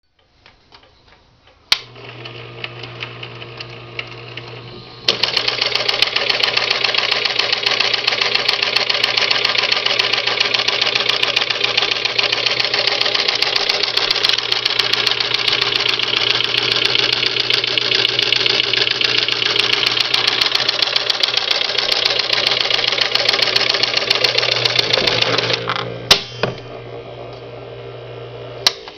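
Vintage Singer Sew Handy Electric toy sewing machine: a click about two seconds in, then its small electric motor hums. About five seconds in the mechanism starts a loud, fast rattle that lasts some twenty seconds before dropping back to the hum, which ends with a click near the end.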